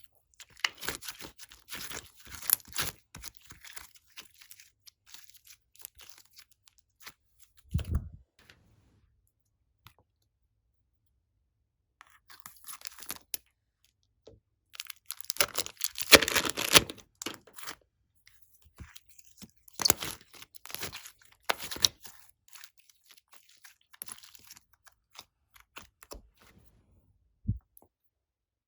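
Slime being squeezed, stretched and pressed by hand, giving off clusters of sharp crackles and pops with quiet pauses between them. A dull thump comes about eight seconds in.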